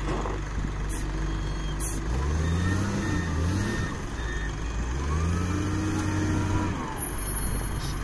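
Liugong 848H wheel loader's diesel engine running, revving up and dropping back twice as the loader manoeuvres.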